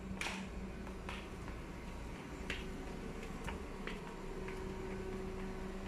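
Bare feet slapping on tiled stair steps: a scattered, uneven run of light sharp clicks over a steady low hum.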